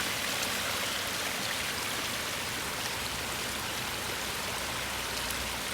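Pond waterfall and stream, water running and splashing steadily.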